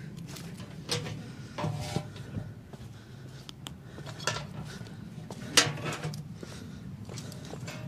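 Dishes and cutlery clinking and clattering irregularly, with one sharper knock about five and a half seconds in: washing-up under way.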